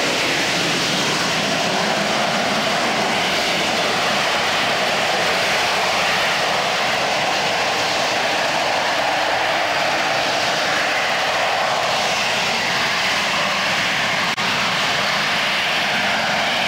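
AV-8B Harrier's Rolls-Royce Pegasus vectored-thrust turbofan running at high power in a jet-borne hover, a loud, steady jet roar.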